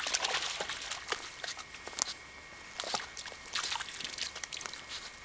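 A young Welsh Springer Spaniel wading through a shallow muddy puddle: irregular sloshing splashes from its legs in the water, thickest in the first second and again near the end as it scrambles up onto the bank.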